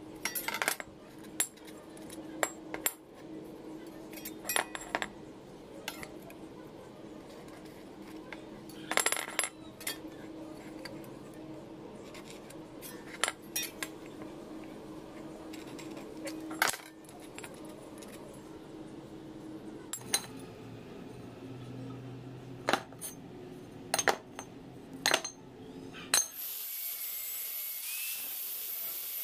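Steel workshop parts being handled: scattered metal clinks and knocks over a steady low hum. About three seconds before the end a steady high hiss starts.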